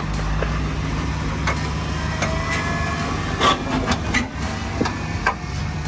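Off-road vehicle's engine running at low revs while crawling over rock, with scattered knocks, clicks and short squeaks. The knocks are loudest about three and a half seconds in.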